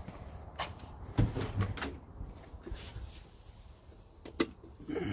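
Light knocks and clicks of handling at a 1968 Datsun 1000's open driver's door and cabin, several short ones spread through, the sharpest about four and a half seconds in.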